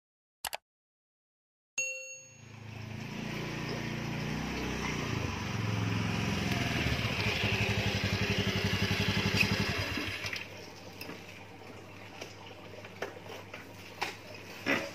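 Honda BeAT scooter's small single-cylinder engine running loud with its pitch wavering for several seconds, then dropping to a quieter steady idle about ten seconds in.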